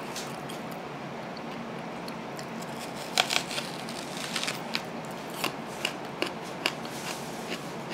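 Whole raw peeled onion being bitten into and chewed, close to the microphone: a run of sharp, crisp crunches starting about three seconds in, after a few seconds of quiet room tone with a faint steady hum.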